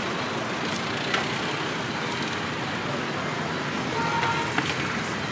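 Steady road traffic noise, with a few short sharp clicks and a brief horn-like tone about four seconds in.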